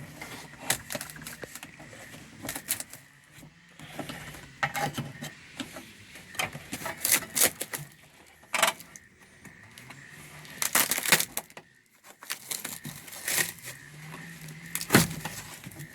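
Old dash pad of a 1966 Mustang being pried off the metal dash: irregular cracks, snaps and crinkling as the brittle foam and vinyl break away in pieces, with the loudest snaps about eleven seconds and fifteen seconds in.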